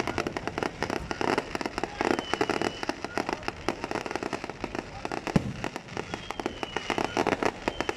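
Fireworks display: a dense, continuous barrage of rapid bangs and crackling, with a few short whistles.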